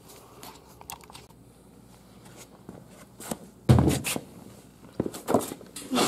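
Small metal pick scraping and tapping packed grit out of a mower gearbox housing: scattered clicks and short scrapes, with one louder knock a little past halfway.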